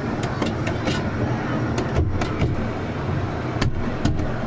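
Safari ride train running, a steady rumble with scattered clicks and knocks.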